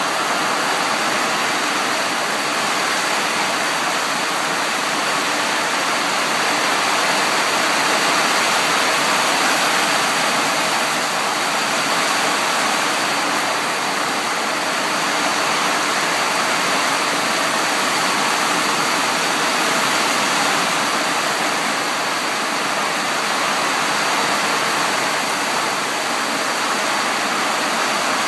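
Heavy rain falling, a loud, steady hiss.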